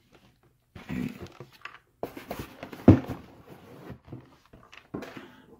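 A cardboard product box and its bubble-wrap packaging being handled and slid about on a wooden table, with scraping and rustling in short spells and one sharp knock about three seconds in.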